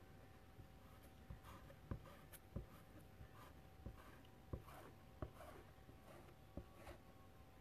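Faint scraping and scattered light taps of chalk paste being worked over a stencil transfer with a squeegee, a dozen or so soft knocks spread unevenly through the quiet.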